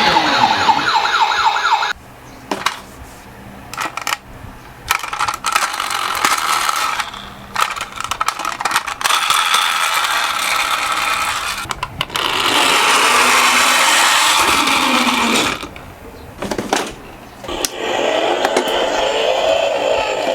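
Toy ambulance minicar's electronic siren wailing, cutting off about two seconds in, then toy minicars rolling and clattering down a slope in long stretches of whirring noise with scattered clicks.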